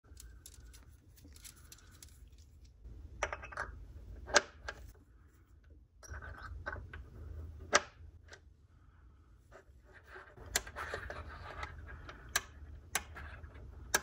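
Speaker-cable plugs being pushed onto the metal binding posts of a KLH Model 3 speaker and its back-panel knob being turned by hand: scattered sharp clicks with scraping and rustling handling noise between them.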